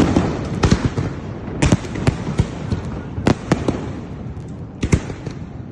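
Aerial fireworks going off: a continuous crackle with many sharp bangs at irregular intervals.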